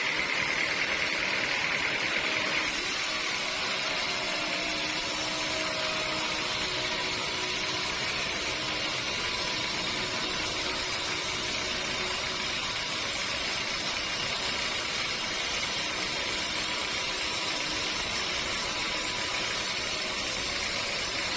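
Sawmill machinery running steadily with a constant mechanical noise, its tone shifting about two and a half seconds in.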